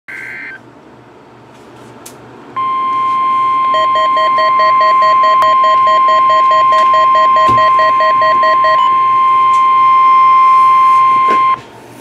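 NOAA Weather Radio Required Weekly Test through a Midland WR-300 receiver's speaker. It opens with the brief end of a SAME digital header (a short two-tone screech). About two seconds later the steady 1050 Hz warning alarm tone begins and holds for about nine seconds before cutting off. For about five seconds in the middle the receiver's own rapid alert beeping, about four to five beeps a second, sounds over the tone.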